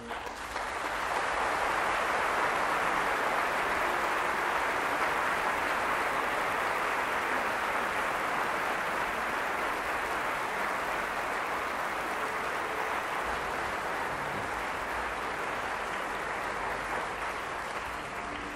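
Theatre audience applauding steadily, easing slightly near the end.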